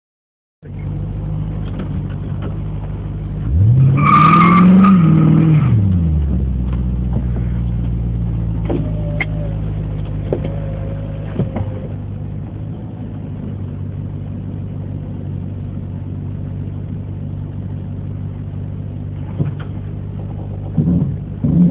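Car engine idling while staged at a drag strip, heard from inside the cabin, revved up once and back down about four seconds in with a brief high squeal during the rev, then settling back to a steady idle.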